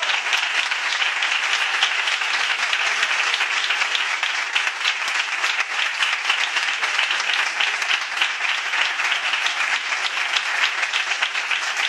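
Applause: many hands clapping steadily.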